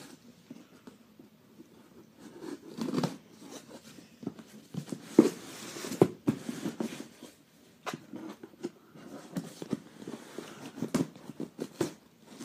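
Hands handling a cardboard shipping box: irregular taps, scrapes and brief rustles, with a sharper knock about five seconds in.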